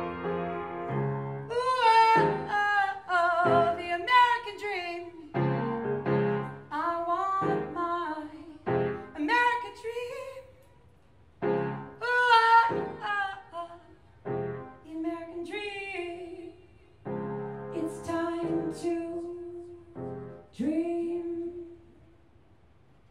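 A woman singing with her own upright piano accompaniment: sung phrases with vibrato over sustained piano chords, broken by short pauses. About three-quarters of the way through, the song closes on one long held sung note that fades out.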